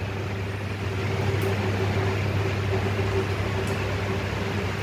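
Steady low hum with a fainter higher tone over it, like machinery or an appliance running, and two faint ticks.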